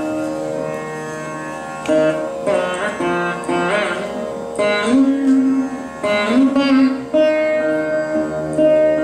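Saraswati veena played in Carnatic style: plucked notes that ring on, with sliding pitch bends (gamakas) through the middle of the passage.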